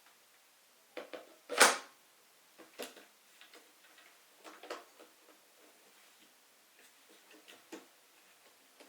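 Scattered clicks and knocks as a 1/10-scale RC crawler truck is handled, the loudest about one and a half seconds in.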